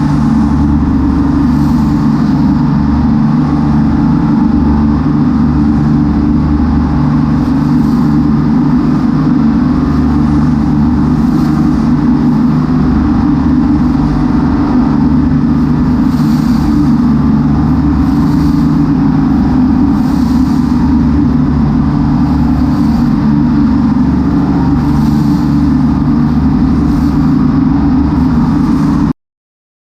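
Pilot boat's engines running steadily under way, with a rough hiss over the top that swells every second or two. The sound cuts off suddenly near the end.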